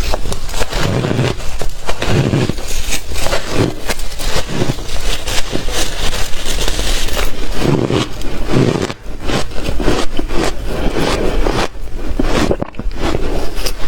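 Close-miked crunching of hard shaved ice being bitten and chewed: a dense, continuous crackle of sharp crunches with heavier chewing thuds now and then.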